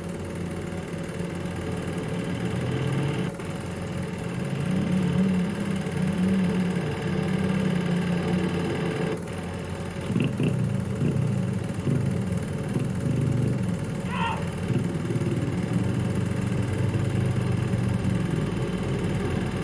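Single-cylinder four-stroke trail motorcycle engine running and being revved, its pitch rising and falling as the bike is ridden over dirt.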